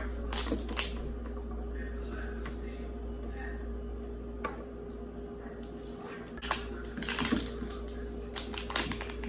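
Toy packaging being handled and opened: scattered clicks and crinkles of plastic wrapping, over a steady low hum.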